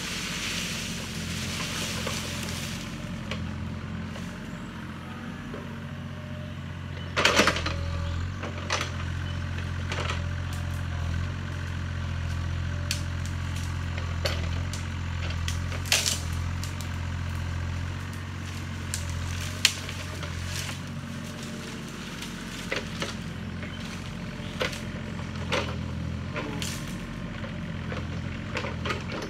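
Yanmar ViO35 mini excavator's diesel engine running steadily while its bucket tears out brush, with branches rustling and a scatter of sharp cracks and snaps, the loudest about seven seconds in.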